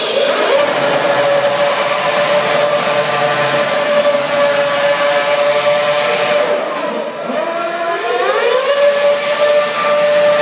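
Red Bull RB7 Formula One car's Renault V8 held at high revs in a steady high-pitched note. About seven seconds in the pitch drops, then climbs back up to the same note as it spins its rear tyres into smoke.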